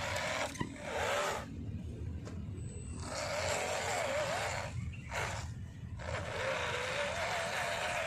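MN99S 1:12 scale RC crawler's electric motor and gearbox whining in several spurts as the throttle is blipped on and off, the pitch wavering up and down with the throttle, with short pauses between spurts.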